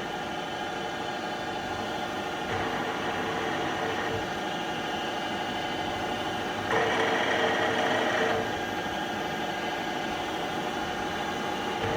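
Trak DPM5 CNC vertical bed mill running a small drilling program, its spindle turning at 1200 RPM in high gear with a steady hum of several held tones. The sound swells twice: briefly about two and a half seconds in, and louder and brighter for about a second and a half near the middle.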